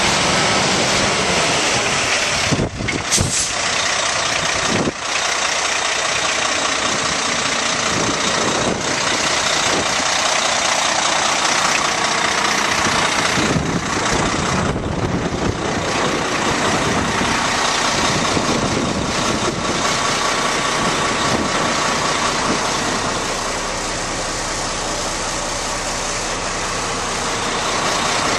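Kenworth T800 concrete mixer truck's diesel engine running steadily, with a few short sharp sounds about three and five seconds in.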